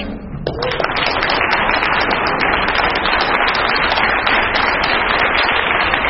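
Audience applauding, many hands clapping; it builds about half a second in and then holds steady.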